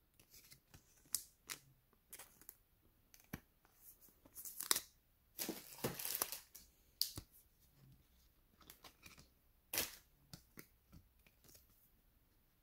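Trading card and clear plastic card holder being handled: faint, scattered rustles and clicks of card stock against plastic, the loudest a little before halfway through.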